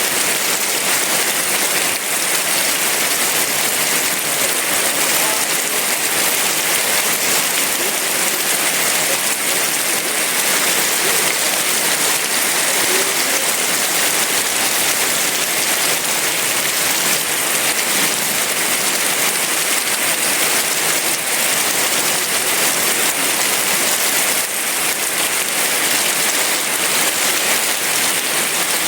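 Heavy rain falling steadily, a dense even hiss of drops with no thunder in it.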